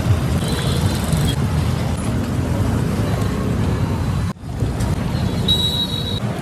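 Steady street traffic noise, a rumble of passing vehicles, that drops out for an instant about four seconds in.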